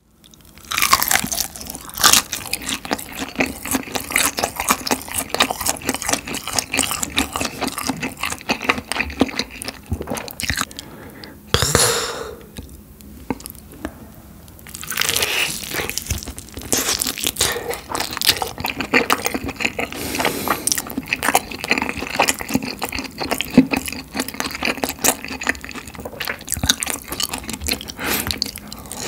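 Close-miked eating of spicy red-sauced fried chicken: repeated crunchy bites and chewing, with crackling clicks. There is a short lull about halfway through.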